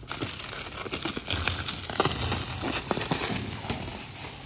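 Irregular rustling with scattered light clicks and knocks.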